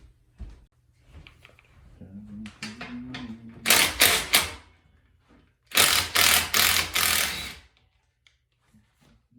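Two bursts of loud mechanical rattling: a short one of three quick strokes about three and a half seconds in, then a longer pulsing one of nearly two seconds, with lighter clicks before them.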